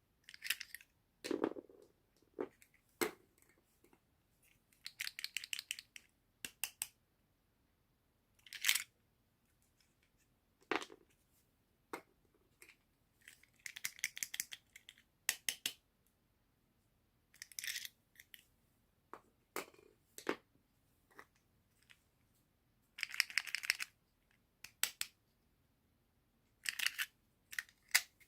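Toy packaging being opened by hand: about eight short bursts of crackly cutting and tearing, with a few soft knocks and quiet gaps in between.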